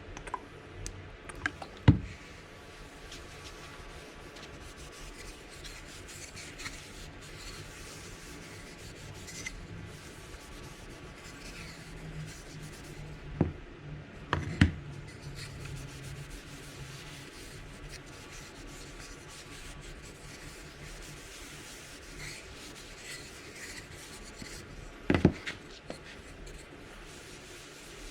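Wooden end-grain coasters being rubbed by hand, a steady faint scratching, with a few sharp knocks: one about two seconds in, a pair around the middle, and one near the end.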